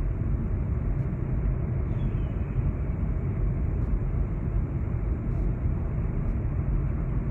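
Steady road noise inside a car's cabin cruising at highway speed: an even rumble of tyres on pavement and the running car, strongest in the low end.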